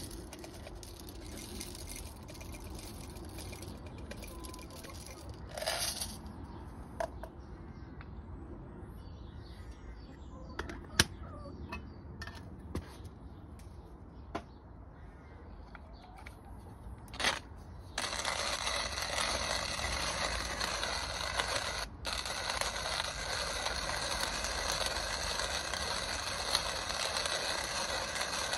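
Manual hand-crank coffee grinder: scattered clicks and knocks as beans go into it and it is handled, then, about two-thirds of the way in, a steady gritty crunching as the crank is turned and the beans are ground, with one brief pause.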